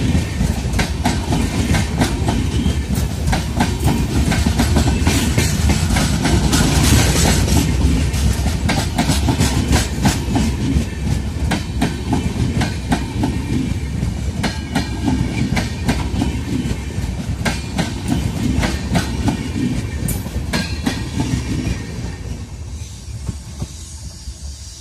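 Passenger express train coaches running past at speed, the wheels clattering over rail joints in quick, irregular clicks over a steady rumble. The clatter grows fainter over the last few seconds as the train draws away.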